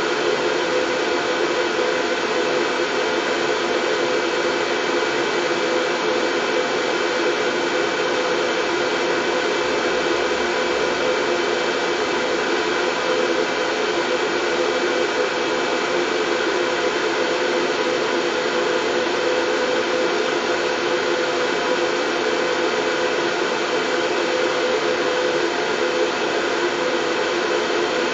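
Continuous white noise for soothing a colicky baby to sleep: an even, unchanging hiss with a faint steady hum in it, fullest in the low-middle range.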